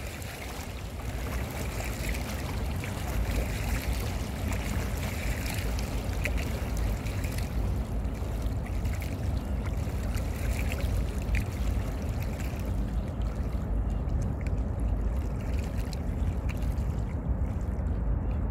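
Small river waves lapping and splashing against the rocks at the water's edge, over a steady low rumble. The splashing grows fainter about two-thirds of the way in.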